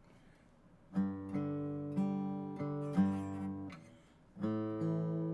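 Fender CD60CE cutaway dreadnought acoustic guitar with Ernie Ball Earthwood extra-light strings, played with a pick. Chords start about a second in and are struck several times, then ring out and stop just before four seconds. A new chord comes in near the end.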